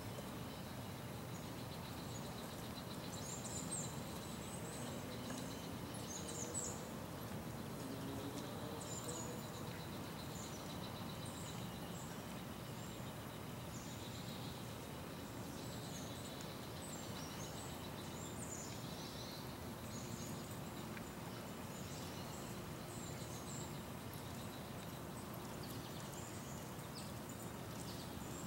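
Outdoor ambience: a steady background hum with short, high bird chirps scattered throughout and a faint steady high whine.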